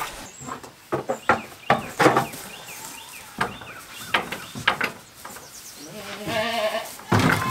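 A goat bleats, a wavering call about six seconds in, among scattered knocks and clatters.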